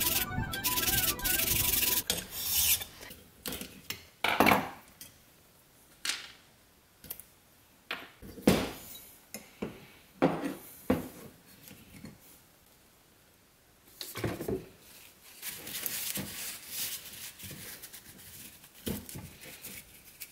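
Flat hand file rasping in quick strokes across the edge of an aluminum sheet plate for the first couple of seconds, then scattered knocks and clicks of metal parts set down on a wooden workbench, and steady rubbing over the last third as the surfaces are sanded and wiped clean.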